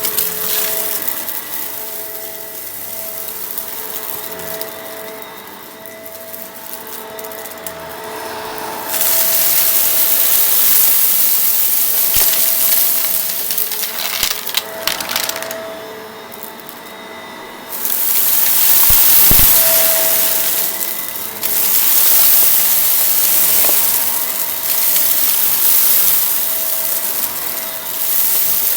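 Shark vacuum cleaner running over a dusty mess: a steady motor whine under the rush of suction, which gets louder and crackly in long stretches as debris is pulled up, then settles again.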